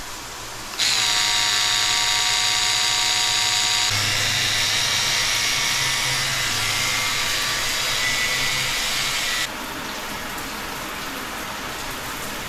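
A small handheld electric motor starts up about a second in and runs with a steady high whir. It stops about two seconds before the end, leaving a quieter steady hum.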